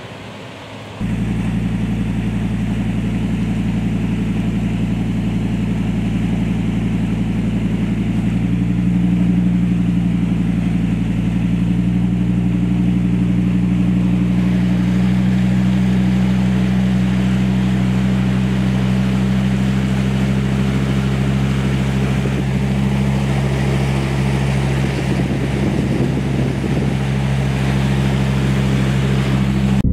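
Steady low hum of a vehicle engine heard from inside the cab while driving slowly, starting suddenly about a second in and shifting slightly in pitch around eight seconds in.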